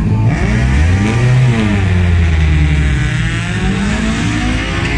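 Saloon race car's engine being revved while it is held at the start line before launch, the revs rising and falling twice.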